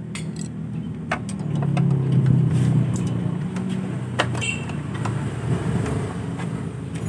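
A motor vehicle engine running with a low hum that swells about two seconds in and then eases off. A few sharp clicks, likely tools or parts, land over it.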